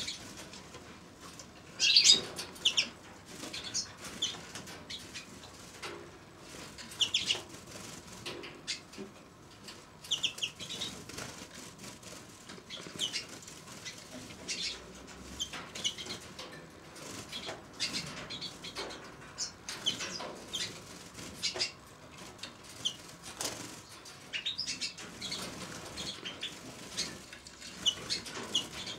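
Small aviary finches, Eurasian siskins among them, giving short high chirps and twitters scattered throughout, with wings fluttering. The loudest burst of calls comes about two seconds in.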